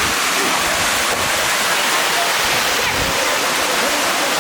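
Bonita Falls pouring into its pool: a loud, steady rush of falling water.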